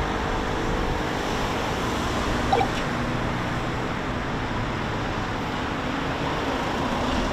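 Steady city street ambience: the even hum and hiss of nearby road traffic, with one brief short tone about two and a half seconds in.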